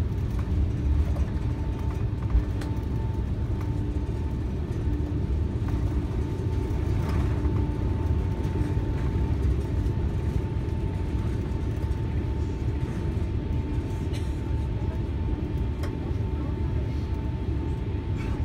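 Airbus A380 cabin noise during the takeoff roll and lift-off: a steady low rumble of engines and rushing air, with a faint steady whine.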